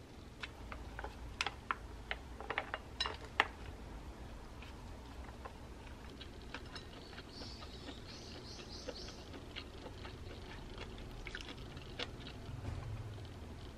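Chopsticks stirring soy-milk noodle soup in a glass bowl, with a flurry of light clicks and taps against the glass in the first few seconds and soft sloshing after. About eight seconds in, a bird outside chirps a short run of about five high notes.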